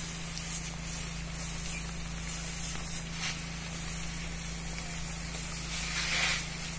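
Pressurised liquid hissing from a long fibre spray pole (fiber dhoti) spraying arecanut palms, over a steady low hum. The spray swells louder about six seconds in.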